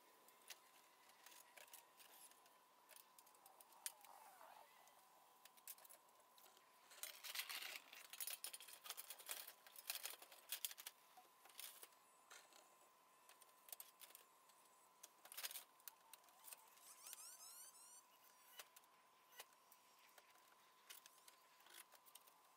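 Near silence broken by scattered faint clicks and taps of work on a steel tile roof, thickest in a cluster a third of the way in, over a faint steady high tone.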